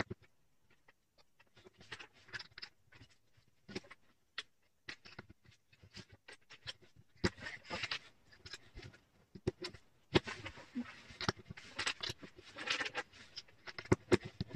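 Plastic Lego bricks clicking and knocking together as they are handled and pressed onto each other, with irregular sharp clicks that grow busier, with rustling between them, in the second half.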